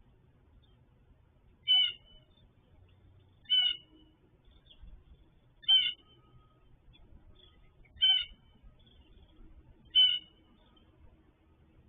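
An animal's short call, five times at roughly two-second intervals, each a brief mewing note.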